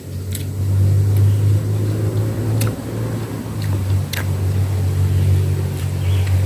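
Strong wind buffeting the microphone: a deep rumble that swells and dips unevenly. A few sharp clicks sound over it.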